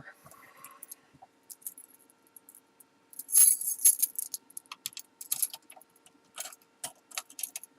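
Metal keys clinking and rattling against the clamps and carriage of a Foley Belsaw 200A key machine as a depth key and key blank are changed and set between cuts. Scattered clicks, with a cluster of louder rattles about three and a half seconds in.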